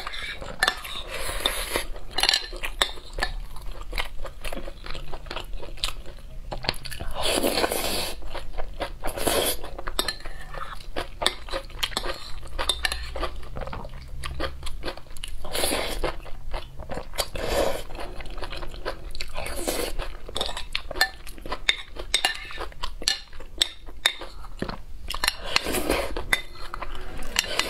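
Close-miked eating: chewing and crunching of rice in broth, with a metal spoon clinking and scraping against a glass bowl. Several louder sips from the spoon stand out every few seconds.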